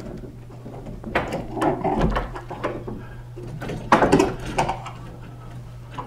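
Handling noise as a wooden and metal bracket is fitted into a tall case clock's case: several short knocks, clicks and scrapes, the loudest cluster about four seconds in, over a steady low hum.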